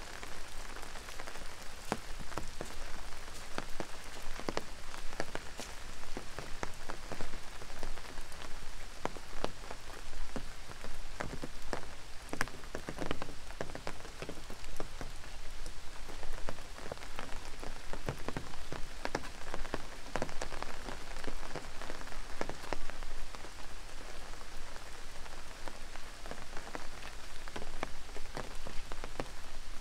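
Steady rain falling, with many irregular, sharp drop ticks close by.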